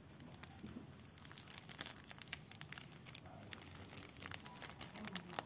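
Clear plastic wrapping crinkling in quick, irregular crackles as it is handled.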